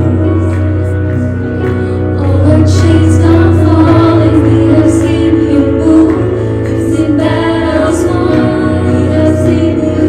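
Contemporary worship song playing, with singing over steady, held chords.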